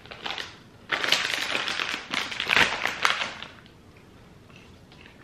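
Clear plastic snack bag of cheese popcorn crinkling loudly as it is handled and put down, starting about a second in and lasting about two and a half seconds.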